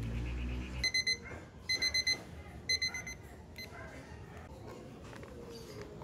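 Digital alarm beeping: short, high-pitched electronic beeps in rapid groups of two to four, repeated about once a second, stopping after about three and a half seconds.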